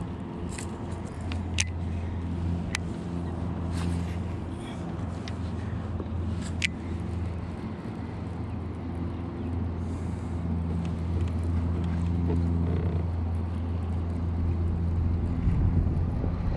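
A steady low engine drone that swells and eases over several seconds, with a few sharp light clicks in the first half.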